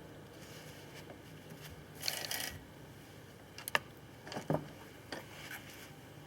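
Small metal parts of a chainsaw being handled: a short rasp about two seconds in, then a few sharp clicks.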